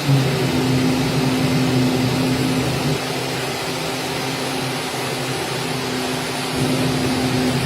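CNC oscillating-knife gasket cutting machine running, a steady mechanical hum with a hiss like a vacuum blower, shifting slightly in tone a few times.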